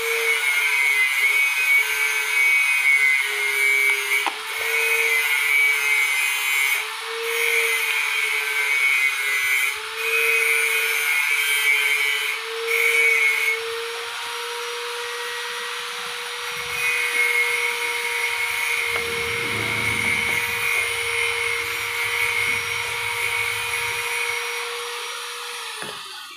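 Small battery-powered toy's electric motor and plastic gears whirring, loud and continuous, its pitch wavering in a slow regular cycle about every two and a half seconds for the first half and then holding steady. It cuts off abruptly just before the end.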